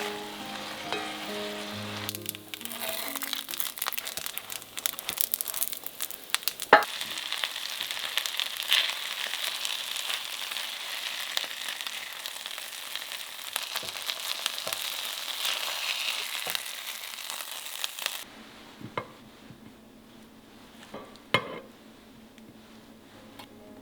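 Food sizzling and crackling as it fries in a hot pan, a dense steady hiss that stops abruptly about three-quarters of the way through, leaving a few faint clicks.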